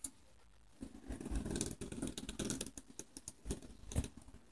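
Green plastic fidget spinner whirring on its bearing on a wooden tabletop after being flicked, a rattling buzz that starts about a second in. Fingers knock against it with a few sharp clicks, two louder ones near the end.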